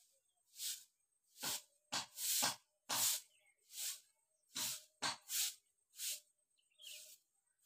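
A cow grazing, tearing off mouthfuls of grass and leaves: about eleven short rustling rips, irregularly spaced, roughly one or two a second.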